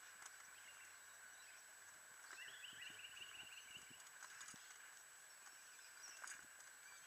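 Near silence: faint outdoor ambience with a steady hiss, a faint high wavering call from about two seconds in, and a few light ticks.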